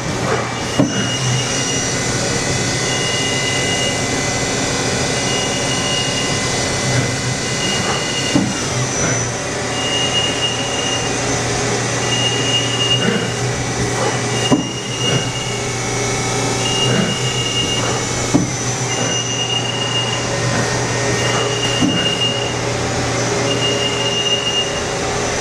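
Okuma Howa HL-20 CNC turning center running under power: a steady machine hum with several constant whine tones. A high beep repeats about every one and a half seconds, and there are a few short knocks.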